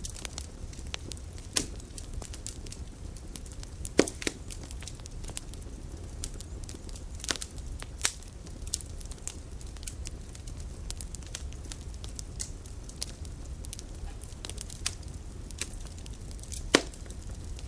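Campfire burning: wood crackling with many irregular small pops and a few louder snaps, the loudest about four seconds in and near the end, over a low steady rumble.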